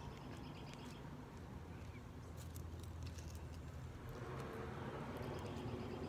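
Outdoor ambience: a steady low rumble with a few small bird chirps and some light clicks.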